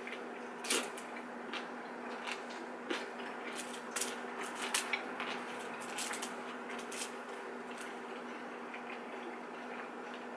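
Scattered sharp clicks and taps of eating at a table, with utensils touching dishes, over a steady low hum.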